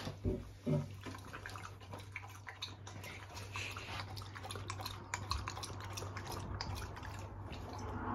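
A small dog lapping water from a stainless steel bowl: a quick, irregular run of wet lapping clicks.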